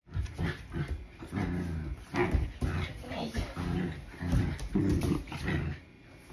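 Young border collie growling over and over in tug-of-war play while pulling on a rope toy, a string of low rumbling growls mixed with a few sharp clicks, dying down near the end.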